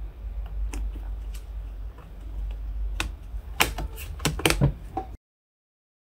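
Metal RAM shield on a Lenovo ThinkPad E16 motherboard being pressed back into place by hand: a run of small clicks and snaps as its retaining clips seat, thickest from about three seconds in, over a steady low hum. The sound cuts off suddenly about five seconds in.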